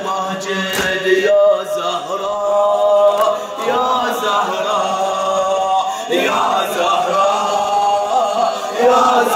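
Men chanting a latmiya mourning lament together, led by a reciter's voice through a handheld microphone, with the slaps of hands beating on chests.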